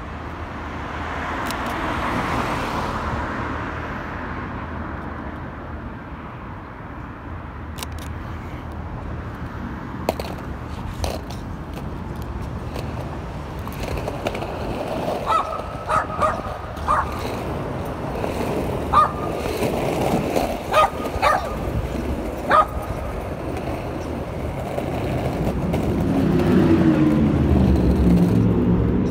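Skateboard wheels rolling over rough asphalt with a steady low rumble. A scattering of sharp clicks and short high chirps comes in the middle, and an engine rises in pitch near the end.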